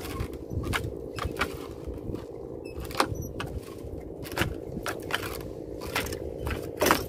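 A steady low hum with irregular clicks and rattles running through it, and louder knocks about three seconds in and near the end.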